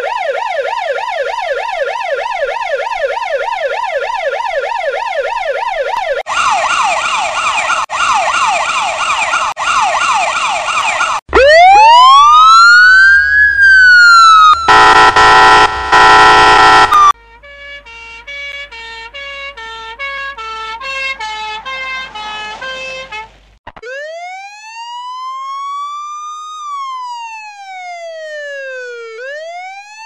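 A run of American emergency-vehicle siren sound effects (police car, ambulance, fire truck), switching pattern every few seconds. First comes a fast yelp, then a slightly slower yelp. Next is a slow rising-and-falling wail with a low rumble under it, then a very loud blaring horn blast, a stepped warbling tone, and finally a slow wail rising and falling again.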